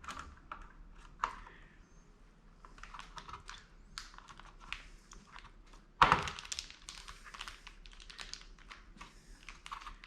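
Small plastic clicks and taps of a RAM module being handled and pressed into a motherboard's memory slot, with one loud snap about six seconds in as the module clicks into place.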